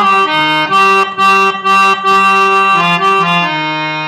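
Hand-pumped reed harmonium playing a melody line of short changing notes over a held low note, settling into a sustained chord about three and a half seconds in.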